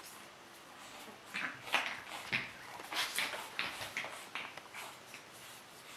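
Eight-week-old pug puppy scuffling against its reflection in a mirror: a string of short, irregular noisy sounds starting about a second in.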